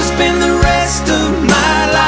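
Recorded country love ballad playing between sung lines, with sustained instrumental chords over a slow drum beat.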